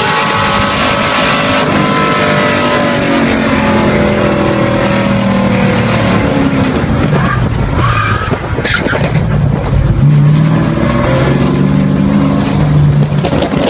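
In-car sound of a V8 race car running hard, then braking heavily from over 110 mph for a slow corner: the engine note falls through the downshifts and the tires squeal about eight seconds in. Near the end the engine pitch rises again as the car accelerates out of the corner.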